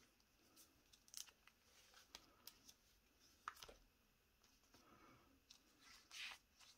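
Faint handling of Hobonichi planner pages: soft paper rustles and scattered light ticks, with a slightly louder rustle about six seconds in.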